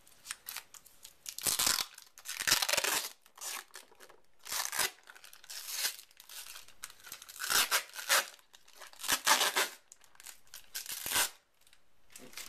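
Plastic wrapping crinkling and tearing in a series of short bursts with pauses between, as it is pulled off a handheld keyboard.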